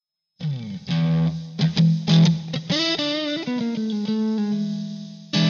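Intro music: an electric guitar playing plucked and strummed notes, ending on a held note that fades, with one last hit near the end.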